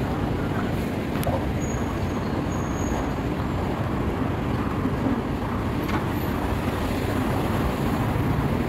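Steady road traffic noise from cars on a busy city street, mostly low-pitched.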